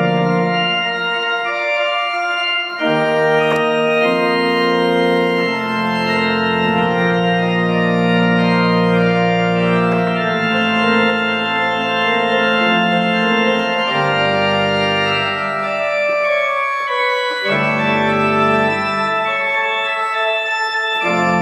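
Organ playing sustained full chords over a pedal bass line played with the feet, the harmony changing every few seconds.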